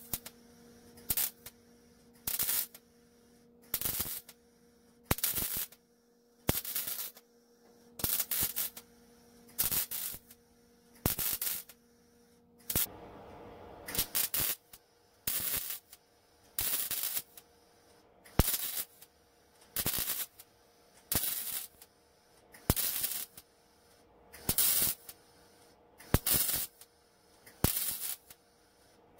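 MIG welder laying short spot welds on trunk-floor sheet metal: a crackling, sizzling arc burst roughly once a second, each under a second long, with brief pauses between them.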